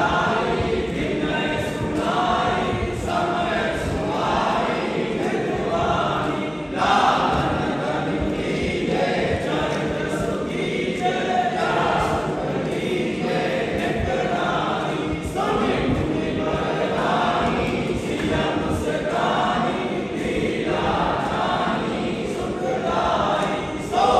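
A group of voices singing an aarti hymn together, phrase after phrase, without pause.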